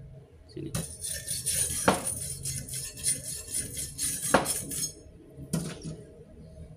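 Steel wire brush scrubbed back and forth over a fresh stick-weld bead on steel, clearing off the slag: a rapid scratchy rattle for about four seconds with a couple of sharper knocks, then one more short scrape near the end.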